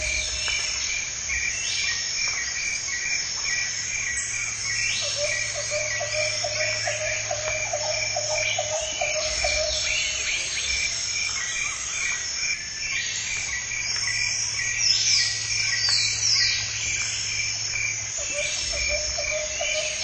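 Jungle ambience of insects and frogs calling together: a regular high chirp repeating a few times a second over a dense insect buzz, a lower trill that comes and goes, and short falling whistled calls higher up.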